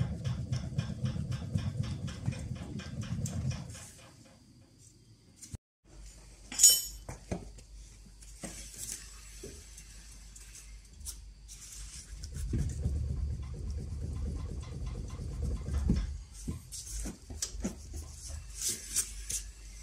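A raised Mercedes E-Class front wheel being rocked side to side by hand to check for tie-rod play. For the first few seconds it gives a rapid, even knocking, about four or five knocks a second, over a low rumble. After a break there is a sharp metallic clink, then more low rumbling as the wheel is rocked again, ending in a thud.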